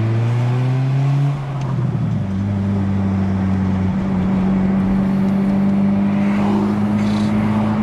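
Acura RSX's four-cylinder engine heard from inside the cabin, its pitch climbing as the car accelerates, then dropping back about a second and a half in at a gear change and holding steady as it cruises.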